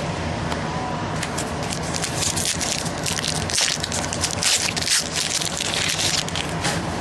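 Football trading cards and their pack wrapper being handled, a dense run of crisp crackles and clicks that is busiest in the middle, over a steady low hum.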